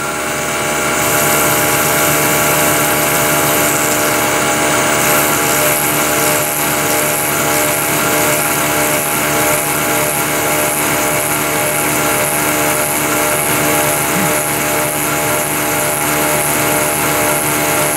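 Milling machine spindle running at its top speed, about 4,255 rpm, while a 3/32-inch end mill cuts a slot 30 thousandths deep in a metal part. A steady mechanical hum of many held tones, with a high whine coming in about a second in as the cut gets going.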